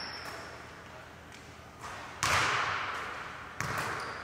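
A basketball bouncing on a hardwood gym floor: a few irregular thuds, the loudest about two seconds in, each echoing through the large gym.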